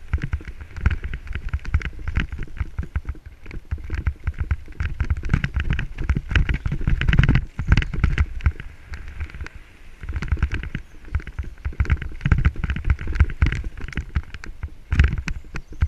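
Mountain bike running fast down a rough dirt forest trail: continuous rattling and clattering of the bike over roots and stones, with tyre noise on the dirt and wind rumble on a helmet-mounted microphone. Heavier bursts of clatter come about seven seconds in and again near the end.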